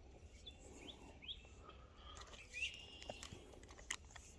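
Faint bird chirps, a few short rising notes, over a steady low outdoor rumble.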